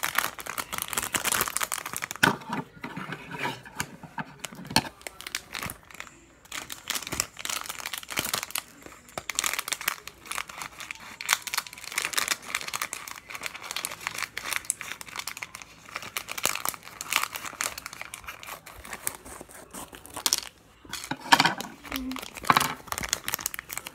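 Crinkly plastic toy packaging being crumpled and torn open by hand: a dense, irregular run of crackles and rustles.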